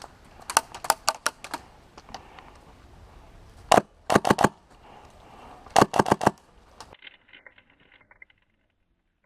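Airsoft guns firing in short bursts of sharp rapid clicks: a string of shots in the first second and a half, a quick burst about four seconds in and another about six seconds in, then fainter, duller clicks after about seven seconds.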